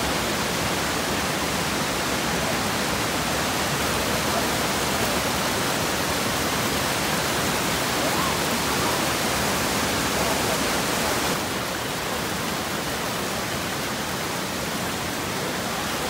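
Mountain stream rushing over rocks: a steady rush of water. It drops a little and loses some of its hiss about eleven seconds in.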